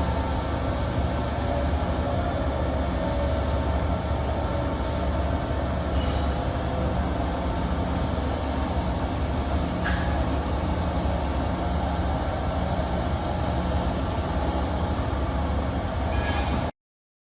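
FEMCO BMC-110 R2 CNC horizontal boring mill running with a steady mechanical hum and low rumble. It cuts off abruptly near the end.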